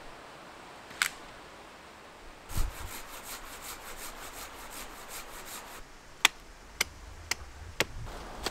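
Curved hand pruning saw cutting through a birch branch: quick rasping strokes about four a second, then a few sharper, louder strokes about twice a second near the end.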